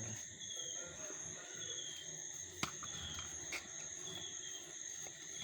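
Steady high-pitched insect chirping, with short repeated pulses. About two and a half seconds in there is one sharp click, and a fainter one about a second later.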